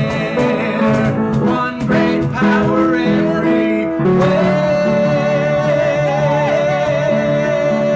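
A woman and a man singing a song together over instrumental accompaniment; about halfway through they hold one long note.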